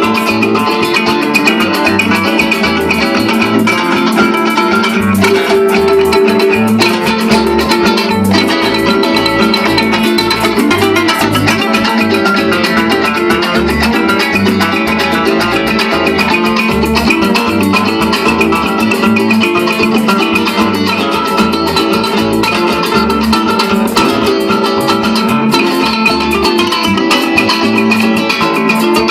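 Bandola playing a plucked-string melody in a Latin American style, over a steady bass line.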